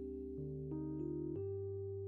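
Background music: soft held chords on a keyboard instrument, the chord changing a few times.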